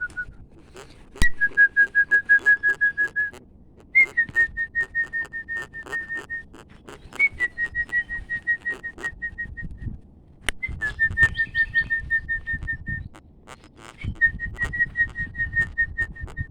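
A person whistling a bird-calling call: five runs of quick, evenly repeated short notes, each run about two seconds long, opening on a slightly higher note and then holding one pitch.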